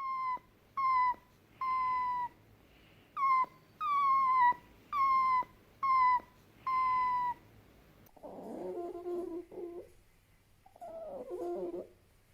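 Fennec fox calling: eight short, high-pitched whining cries in a row, each dipping slightly in pitch. After a pause these give way to two bursts of lower, rough chattering.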